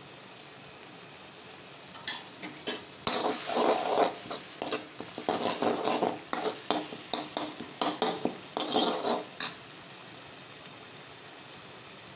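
Spices sizzling in hot oil in a metal pot, with a steady hiss. From about two seconds in, a ladle stirs and scrapes against the pot in quick irregular strokes and clinks, then stops a few seconds before the end.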